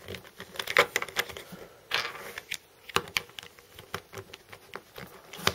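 Plastic pieces of a WitTwo puzzle cube being fitted together by hand: a run of small, irregular clicks with a brief scrape about two seconds in as a piece slides into place.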